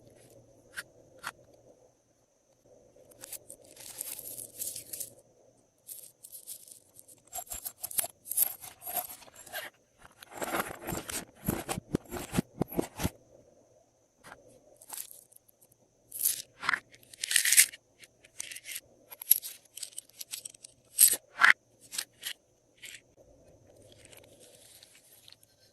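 Glossy slime being handled and mixed: irregular sticky crackles, clicks and small pops, with a dense run of crackling in the middle.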